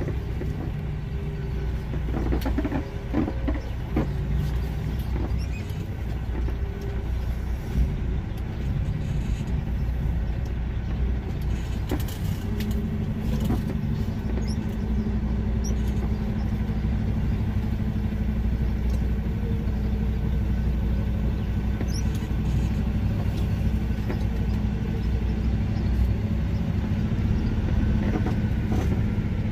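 Semi truck's diesel engine running at low speed, heard from inside the cab as the tractor-trailer creeps and maneuvers, with a few knocks early on. About twelve seconds in the engine settles into a steadier, stronger note.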